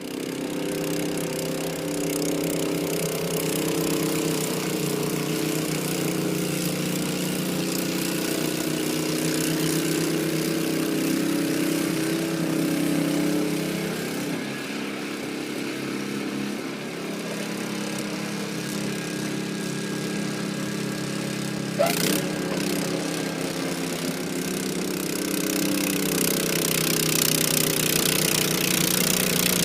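Honda HS55 snowblower's engine running steadily under load, its note wavering and easing off for a few seconds partway through before picking up again. One sharp knock stands out about twenty-two seconds in.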